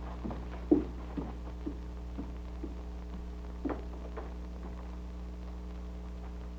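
Footsteps climbing a wooden staircase, about two steps a second and growing fainter, then two more footsteps about halfway through. A steady low hum runs underneath.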